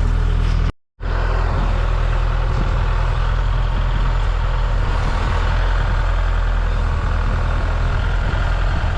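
Tractor engine running steadily at a working idle, a deep, even drone. The sound drops out completely for a moment just under a second in, then resumes unchanged.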